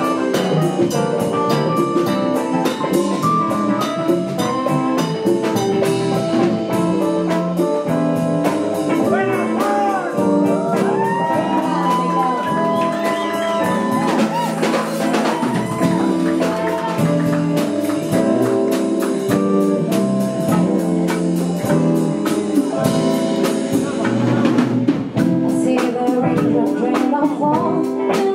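Live jazz-funk band playing: drum kit and hand percussion keep a busy beat under bass, keyboards and guitar, with a gliding, wavering melody line through the middle stretch.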